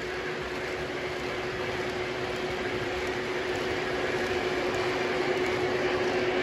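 O scale model train passenger cars rolling past on three-rail track: a steady rolling rattle of wheels on rail over a steady hum, growing slightly louder.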